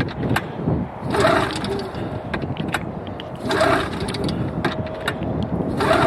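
Snowmobile engine cranked three times on its recoil pull-starter, about two and a half seconds apart, each pull a short burst of rope whir and rapid cranking clicks, without the engine catching. A cold start of an engine that has not been run since the summer.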